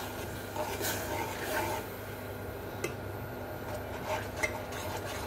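Saucepan of water poured onto caramelized sugar, bubbling softly on the stove, with a few light clicks in the second half.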